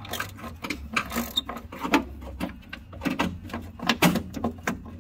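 Hand socket ratchet clicking in short, irregular runs as it is swung back and forth on a nut.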